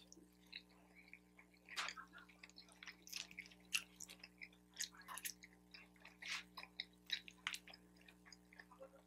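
Faint close-up chewing of a mouthful of pork fried rice: irregular short mouth smacks and clicks.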